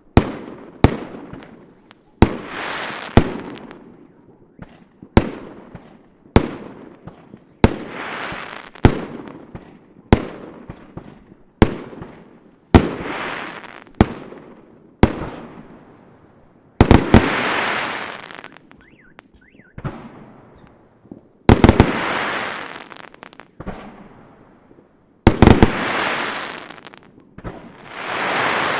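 Fireworks going off in a steady string: a sharp bang about once a second, each followed by a hissing, crackling tail lasting about a second. In the second half several come in quick doubles and triples with longer, stronger tails.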